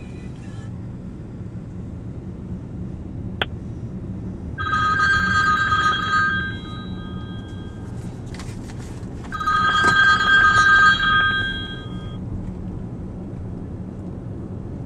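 Mobile phone ringtone for an incoming call, ringing twice for about two seconds each, over the steady low hum of a car cabin while driving.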